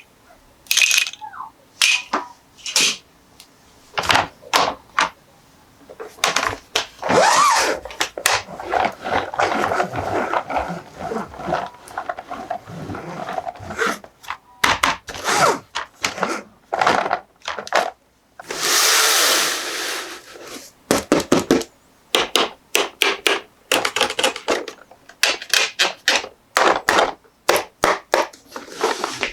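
Plastic toys and packaging handled by hand: a steady run of small clicks, knocks and scrapes, with a denser rustling stretch and a brief rush of noise about two-thirds of the way through.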